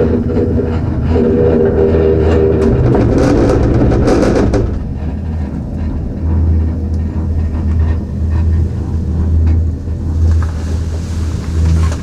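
Gondola lift cabin riding on the rope, heard from inside the cabin: a steady low rumble, with louder rattling and a run of clicks over the first few seconds as the cabin passes a line tower's rollers, then a quieter, even rumble.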